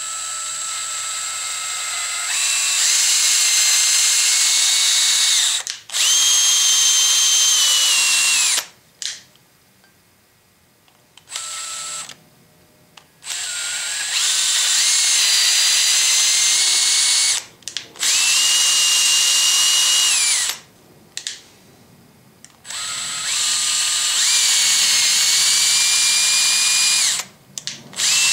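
Cordless drill driving a thread tap, chasing paint-clogged threaded holes in a steel bracket. The motor whines in several runs of a few seconds each with short pauses between, its pitch stepping up and down as the speed changes.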